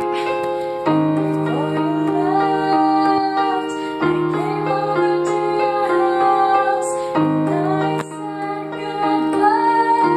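Female voice singing a slow ballad over held piano-style chords on a portable electronic keyboard, with a new chord struck about every three seconds.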